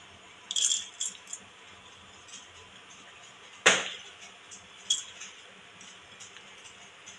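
Washed chana dal and moong dal being tipped into a stainless-steel pressure cooker: small grains rattling on the metal in short bursts, about half a second in and again near five seconds. A single sharp metallic knock with a short ring about three and a half seconds in.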